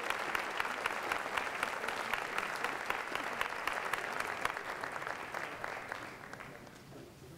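Audience applauding, dense and steady at first, then dying away over the last two seconds or so.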